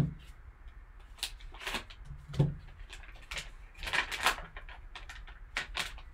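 Plastic wrapping and card packaging crinkling and rustling in gloved hands as a sealed card pack is opened, in a string of short crackles, with a soft knock on the table at the start and another about two and a half seconds in.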